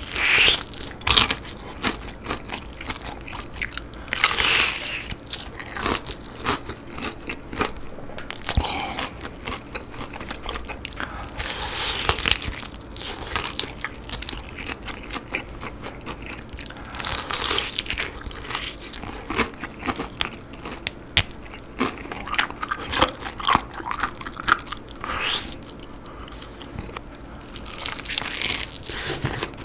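Crunchy bites into a breaded fried chicken leg's crisp coating, with chewing in between, close to the microphone. The crunches come irregularly, some much louder than others.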